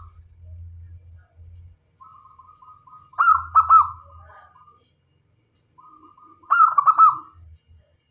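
Zebra dove (local perkutut) singing: two song phrases about three seconds apart, each a quiet rolling lead-in note followed by a quick run of cooing notes. A faint low hum runs underneath.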